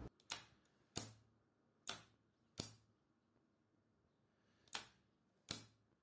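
Lever-arm limit switch being turned and released three times, switching a contactor in and out: six short, sharp clicks in three pairs, with a longer gap before the last pair.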